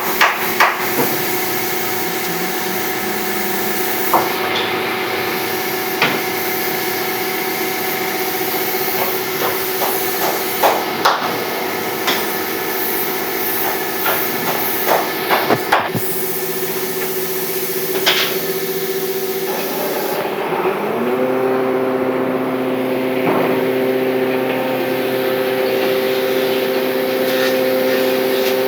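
A motor hums steadily while scattered sharp knocks, like hammer blows on wood, sound every few seconds. About two-thirds of the way through the knocks stop and the motor's pitch steps up, then holds steady.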